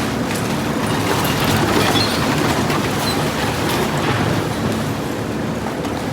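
Steady, dense rumbling noise of a moving vehicle.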